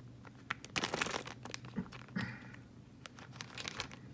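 A trading card pack's wrapper being torn open and crinkled by hand, in a run of uneven crackles and short rustling bursts.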